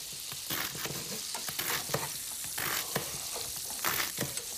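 Monkfish pieces sizzling in butter and oil in a frying pan, with irregular clicks and scrapes of a spatula against the pan as they are turned.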